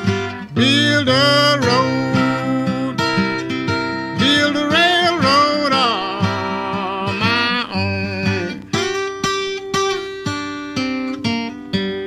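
Acoustic blues guitar playing a Piedmont-style tune: a steady bass pulse under melody notes that glide and bend up and down, about a second in and again from around four to seven seconds.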